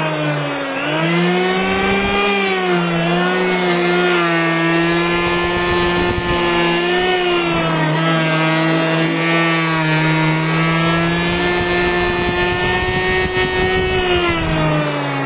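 Electric hand planer running and cutting wood, with freshly sharpened blades. The motor's steady whine sags in pitch a few times as the blades bite into the wood, then recovers.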